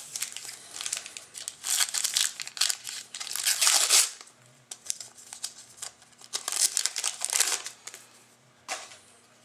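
Trading-card pack wrapper crinkling and being torn open by hand, in irregular bursts that are loudest in the first few seconds and again briefly a little past the middle.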